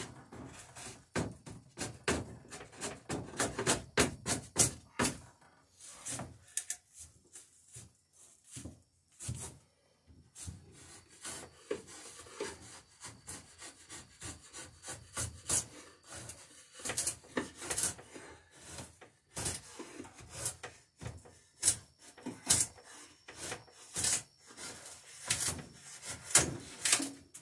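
Hand tool working wood: quick runs of short scraping, rubbing strokes, such as a plane or rasp makes cutting a bevel on a wooden plank. The strokes thin out for a few seconds around the middle, then pick up again.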